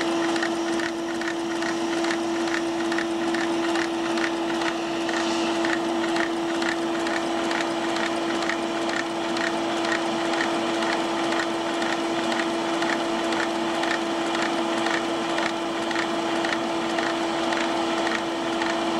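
Air pump running with a steady, loud hum, driving a Lego beam engine whose plastic parts click rhythmically, about three times a second, as it runs.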